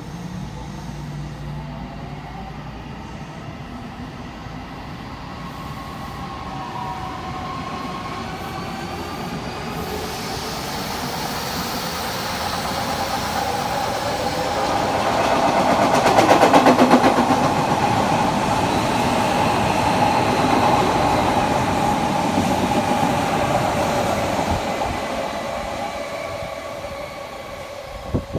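Odakyu 7000 series LSE Romancecar electric express train running through the station without stopping. It rises as it approaches, peaks about halfway through with a rapid clatter of wheels over the rail joints and a tone that drops in pitch as it passes, then fades as it runs away.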